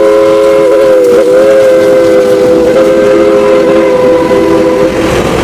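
Steam locomotive's chime whistle blowing one long blast, several notes sounding together as a chord, wavering briefly about a second in and cutting off near the end, over the rumble of the passing train.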